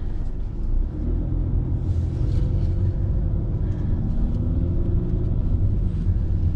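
Car cabin noise while driving: a low engine and road rumble that grows louder about a second in, with a faint engine tone slowly rising.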